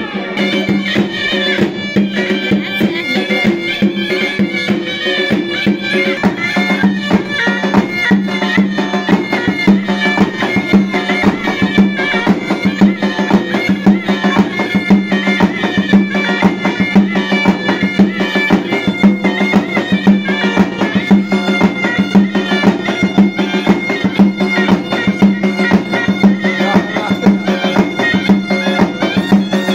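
Traditional folk music: a wind-instrument melody over a steady low drone, with a quick, even drum beat.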